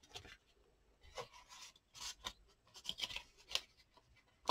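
Faint, short scraping and rustling strokes of paper and vellum as a ruler pushes and shifts a card into a vellum pocket.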